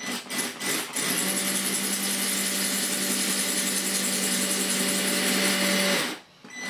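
Cordless drill, rotary only with no hammer action, running a small masonry bit into a glazed ceramic wall tile: a few short pulses of the trigger, then a steady run of about five seconds as the bit grinds through the glaze, stopping about six seconds in, with one more short burst near the end.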